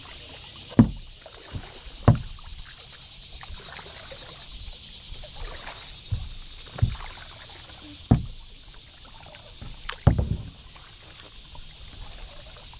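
Kayak paddle strokes: each stroke brings a sharp knock and splash. The strokes come in pairs a little over a second apart, with pauses between, over a steady hiss.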